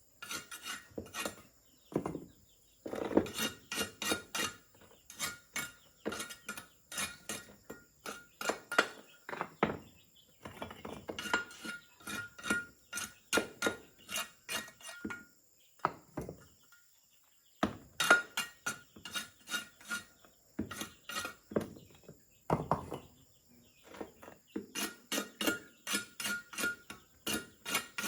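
Rapid series of sharp strikes from a hand tool working bamboo, about three or four a second, each with a short metallic ring. They come in runs of several seconds with brief pauses between them.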